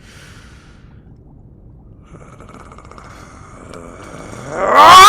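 A man's loud angry roar, bursting in suddenly near the end and rising then falling in pitch, after a few seconds of faint low background.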